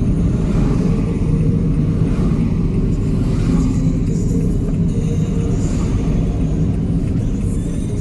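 Steady engine drone and road noise from the recording vehicle cruising at an even speed.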